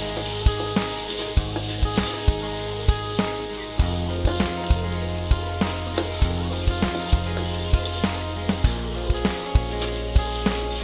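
Sliced onions sizzling in hot oil in a wok as they are stirred with a spatula. Background music with a steady beat, a little over two beats a second, plays over it.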